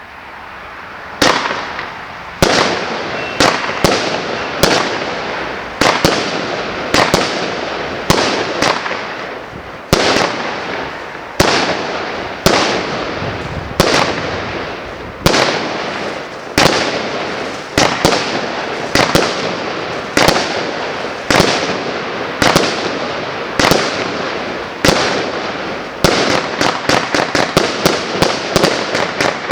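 A 150-shot consumer fireworks cake with 0.8-inch tubes firing: a hiss builds for about a second, then sharp shots come roughly once a second, each fading off in a hiss. Near the end the shots quicken to several a second.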